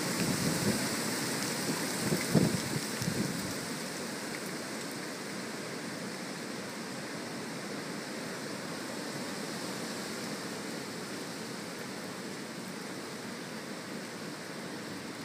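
Hurricane wind and rain as a steady rushing noise. For the first few seconds, low gusts buffet the microphone, the strongest about two and a half seconds in.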